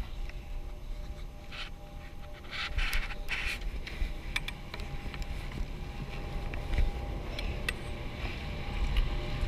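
Chairlift ride: wind rumbling on the microphone over a steady mechanical hum from the lift, with scattered light clicks and knocks. It grows louder near the end as the chair comes into the top station.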